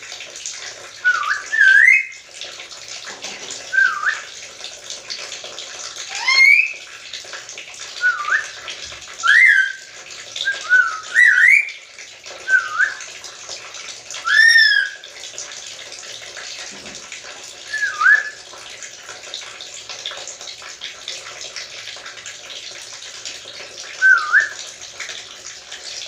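Black-capped lory whistling: about a dozen short whistled notes, many sliding upward or dipping and then rising. They come in quick succession at first, then only now and then toward the end.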